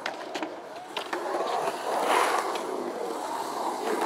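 Skateboard wheels rolling on concrete, a rushing sound that swells about two seconds in and then eases, with a few sharp clicks from the board.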